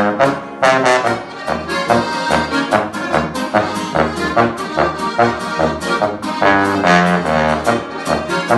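Live folk trio playing an upbeat tune in Oberkrainer style, on diatonic button accordion, acoustic guitar and an upright brass horn. The brass horn carries the bass line and the guitar strums an even oom-pah beat.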